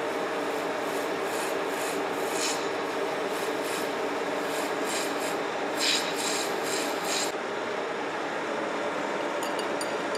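Metal-cutting engine lathe running with a steady gear hum while the tool takes a cut on a bronze bushing, the chips scraping and crackling off the tool in bursts. The cutting noise stops about seven seconds in, leaving the lathe running.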